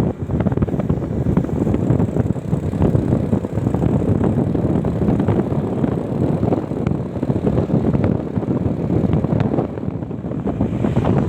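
Wind buffeting the microphone over the low rumble of a moving bus, a steady, gusty roar with no horn sounding.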